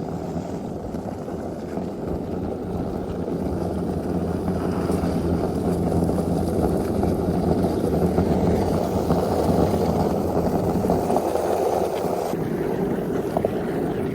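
Steady rumbling noise of skateboard wheels rolling down a rough, icy road.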